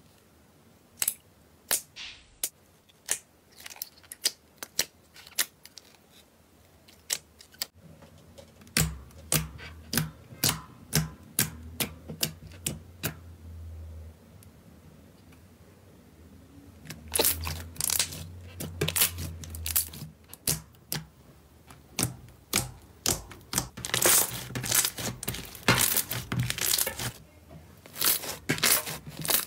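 Hands pressing, squeezing and poking slime, making a string of sharp pops and crackles. The pops are sparse at first, then come fast and crowded about halfway through.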